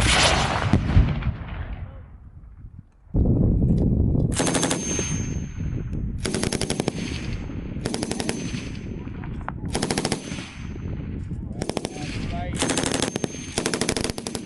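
Machine guns firing on a range. A loud report with a long rolling echo comes first. Then, from about three seconds in, bursts of automatic fire follow one another, about six of them, each roughly a second long.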